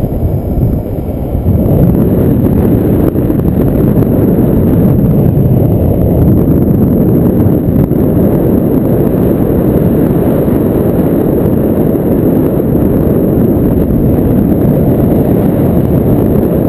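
Airflow buffeting the microphone of a camera on a paraglider in flight: a loud, steady low rumble of wind noise.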